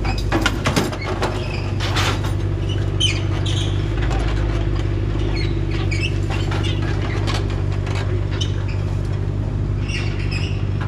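Excavator's diesel engine running steadily, with scattered knocks and clanks of metal over it.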